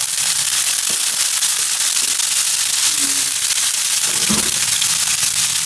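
Raw chicken pieces sizzling and crackling in hot oil in a wok as they are added, with spattering pops and a thump about four seconds in.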